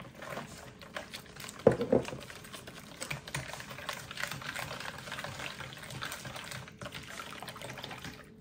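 Hand balloon whisk beating milk into runny muffin batter in a bowl: rapid clicking and tapping of the wires against the bowl with liquid sloshing. One louder brief knock a little under two seconds in.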